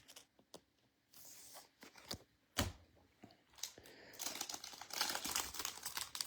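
Trading cards being handled with light clicks and taps. About four seconds in, the crinkling and tearing of a card pack's wrapper being opened starts up and continues.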